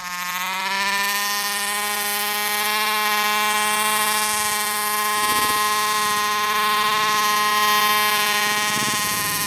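Small two-stroke engine of a 1/5-scale RC buggy buzzing at high, steady revs under throttle.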